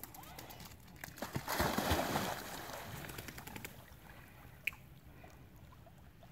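A dog jumping into a lake with a splash about a second and a half in, then water sloshing as it swims away. One sharp click comes later.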